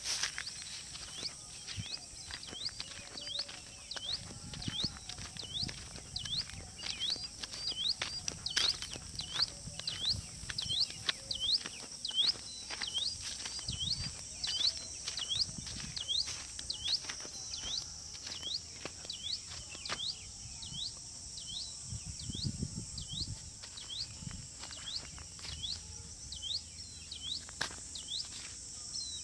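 A steady high-pitched insect chorus, with a short rising chirp repeated about one and a half times a second and the rustle and crunch of footsteps through grass.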